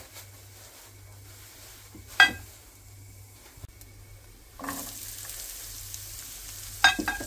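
Garlic and then chopped onion frying in hot oil in a pan. The sizzle is faint at first and turns louder and brighter when the onion is tipped in, about two-thirds of the way through. A sharp metallic clink comes about two seconds in, and a few more come near the end.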